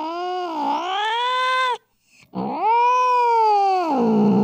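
Angry cat yowling in long, drawn-out wails that bend down and up in pitch. One wail ends a little under two seconds in, and after a short break another begins, dips low near the end and climbs again.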